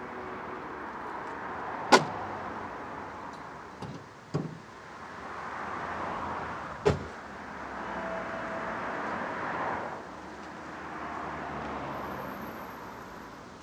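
A Mini Cooper's car door slammed shut once, loud and sharp, about two seconds in. A few lighter knocks follow, over a steady wash of outdoor noise that swells and fades.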